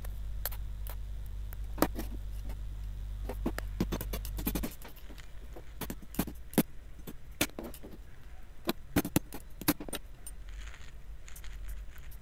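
Irregular sharp clicks and cracks of a knife blade being worked into the glued seam of a plastic laptop charger case to split it open, with a steady low hum that stops about halfway through.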